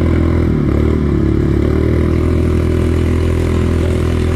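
Fire pump engine running steadily under load, driving a water jet through a fire hose.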